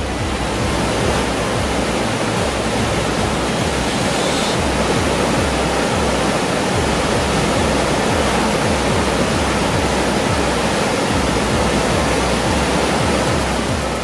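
Tanalian Falls, a large waterfall: falling water making a loud, steady rush.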